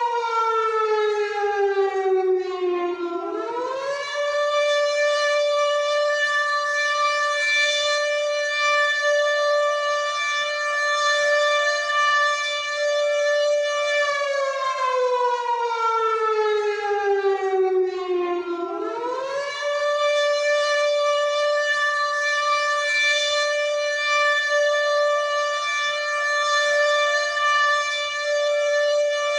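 WW2-style air raid siren wailing in long cycles. The pitch falls slowly for a few seconds, sweeps back up within about a second, then holds a high tone for about ten seconds. This happens twice, and a new fall begins near the end.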